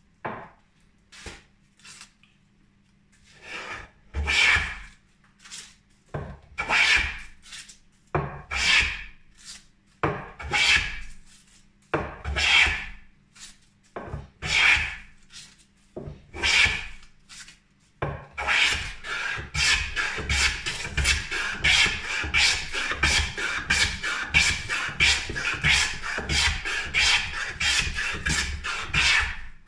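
A wooden double-wedge coffin smoothing plane cutting shavings off a board with a rasping swish on each stroke. At first the strokes are long and come about every two seconds; from about two-thirds in they turn into a fast run of short strokes close together.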